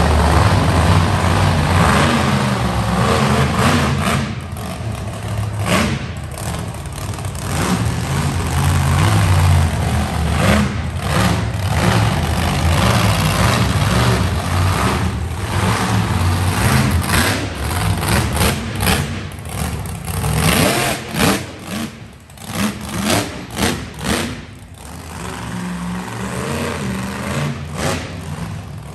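Monster truck's engine running hard under throttle, revving up and down. Around two-thirds of the way through it breaks into a quick series of sharp throttle blips, then settles into a lower, steadier run.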